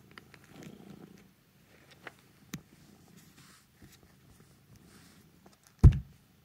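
Domestic cat purring, a soft low rumble that swells in the first second, with a few faint clicks and one loud low thump about six seconds in.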